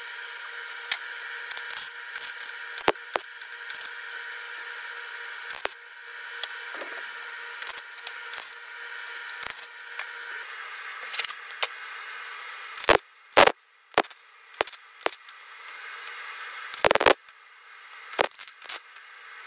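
Workshop fabrication noise: scattered sharp clicks and knocks from metal parts being worked, over a steady hum, with a few louder knocks about two-thirds of the way through and again near the end.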